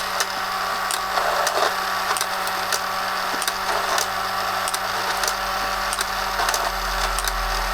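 Tomy Super Cup Football electric tabletop game running on its small motor: a steady mechanical whirr with irregular plastic clicking from the corner flaps flicking up and down to kick the ball back out.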